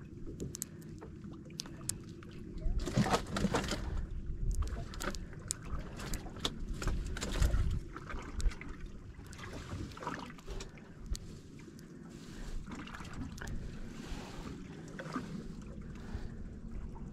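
Small fishing boat afloat at sea: a steady low rumble of water and wind on the microphone, broken by scattered knocks and clicks. There is a louder rush about three seconds in and a heavy thump about seven and a half seconds in.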